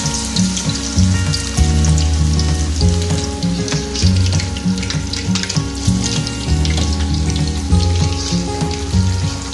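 Chicken pieces deep-frying in hot oil in a wok: a steady crackling sizzle. Background music with a repeating bass beat plays throughout.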